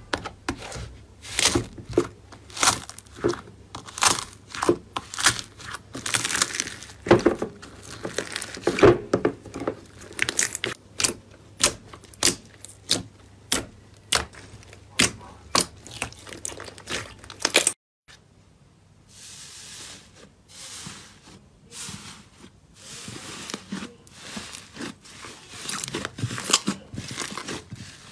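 Hands squishing and pressing slime in a glass bowl: a steady run of sharp sticky clicks and pops, about two a second. About two-thirds in, it cuts to a quieter stretch of soft crinkling as a fluffy slime is pulled and folded.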